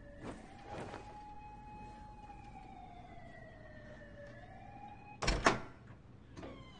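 A distant siren wailing, its pitch slowly falling and rising again. About five seconds in, a sudden loud thump, the loudest sound, with a couple of soft rustles near the start.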